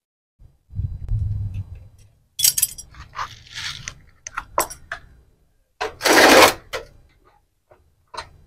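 Metal hand tools and fittings clinking and rattling as they are handled: a low rumble about a second in, a run of sharp clinks, a louder scraping rustle about six seconds in, and one last click near the end.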